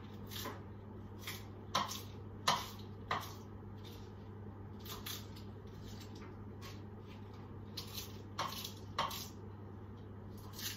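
Kitchen knife cutting a cabbage on a wooden chopping board: a handful of irregular crisp knocks and crunches, a cluster about two seconds in and another about eight seconds in, over a steady low hum.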